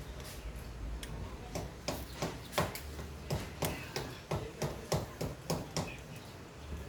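A run of sharp taps or knocks, about three a second, from hand work on the e-bike's parts.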